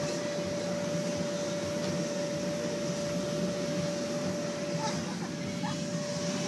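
Electric blower fan of an inflatable bounce house running steadily: a constant whirring rush with one steady hum held throughout.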